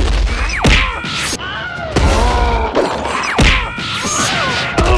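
Cartoon fight sound effects: three falling whistles, each ending in a heavy thud, with cartoon cries in between.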